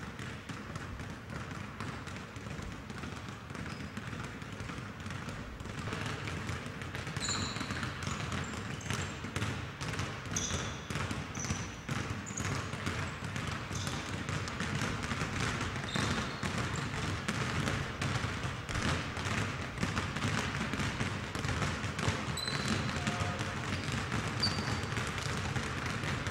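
Basketballs bouncing on a gym floor in a steady patter of dribbles, with brief high sneaker squeaks now and then.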